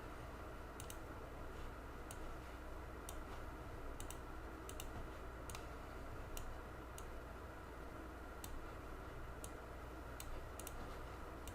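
Faint, irregular light clicks, one or two a second, over a steady low hum.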